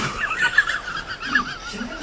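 Baby monkey crying: one long, high, quavering cry that wobbles rapidly up and down in pitch.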